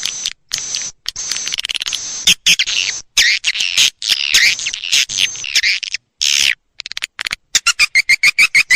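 Swiftlet lure recording of edible-nest swiftlet calls: rapid twittering chirps and trills, broken by abrupt cuts where the sound drops out completely, with a run of quick evenly spaced chirps near the end.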